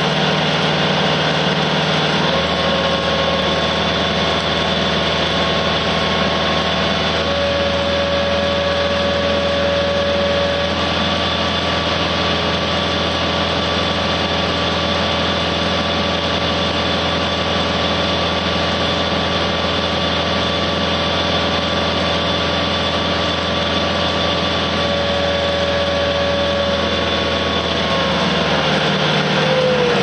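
Tracked skid steer's engine running steadily with its Fecon hydraulic forestry mulcher drum spinning free, a steady whine over the engine drone. The engine note changes about two seconds in.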